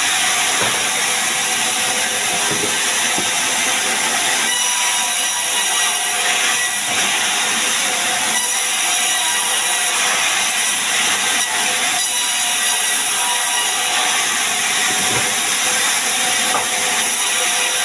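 Sawmill band saw running and ripping sengon (albizia) wood into beams, a loud, steady cutting noise.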